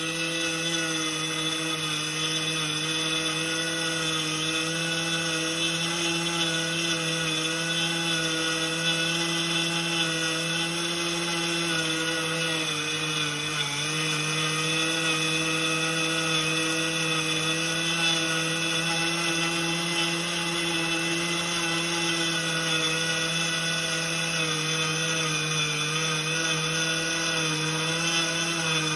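Miller 2500 electric grain mill running and grinding rye into whole-grain flour: a steady high-pitched motor whine with many overtones. The pitch sags slightly for a moment about halfway through while the mill is tilted to mix the grain.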